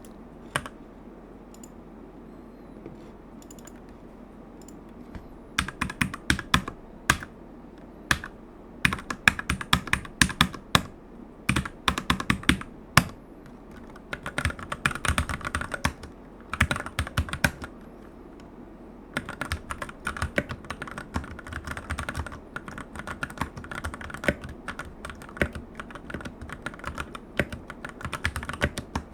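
Typing on a Keychron C2 Pro full-size mechanical keyboard with brown tactile switches: one lone keypress, then from about five seconds in, runs of rapid key clicks with short pauses between them.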